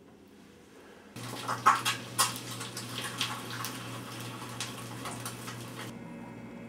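An egg frying in a pan: a steady sizzle with sharp pops and crackles, starting suddenly about a second in and cutting off abruptly near the end.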